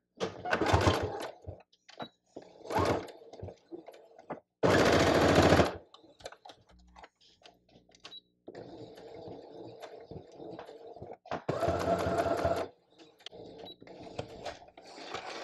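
Domestic electric sewing machine stitching a quarter-inch seam through two t-shirt quilt panels. It runs in several starts and stops: short bursts at the start of the seam while she front stitches and back stitches to lock it, then longer runs, the loudest about 5 s in and about 12 s in.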